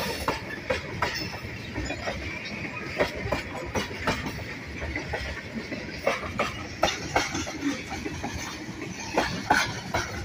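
Freight train tank cars rolling past: a steady rumble of steel wheels on rail with repeated sharp clacks, some bunched together, as the wheel sets pass over the track.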